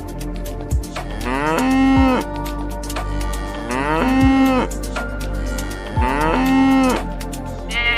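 Cow mooing three times, each call rising in pitch, holding, then dropping, over background music with a steady beat.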